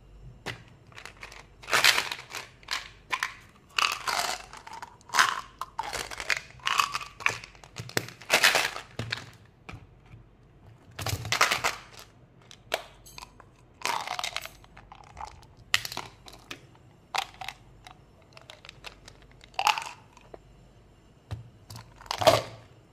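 Hands handling plastic candy packaging and toys: an irregular run of short crinkling, rustling and clacking sounds, with brief quieter gaps between them.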